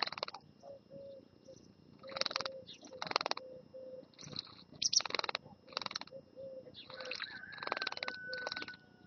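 A European goldfinch bathing in shallow water, fluttering its wings and splashing in short rapid bursts of about a quarter to half a second, repeated around nine times.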